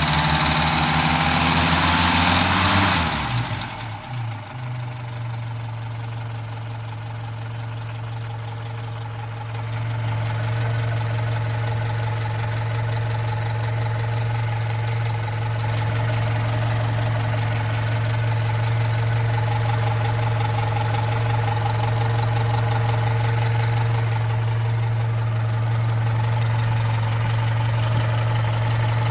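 Opel Rekord P1's inline-four engine running at raised revs, then dropping back about three seconds in to a steady idle with a clatter.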